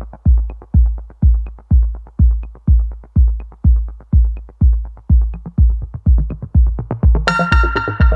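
Electronic background music: a steady, heavy kick-drum beat, joined about seven seconds in by a bright sustained synthesizer chord.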